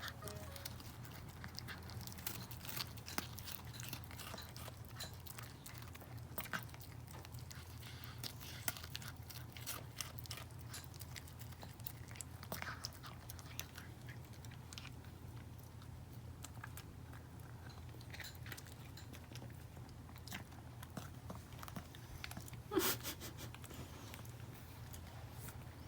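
Toy poodle chewing and crunching food: a long run of irregular, crisp crunches over a steady low hum, with one louder sharp sound near the end.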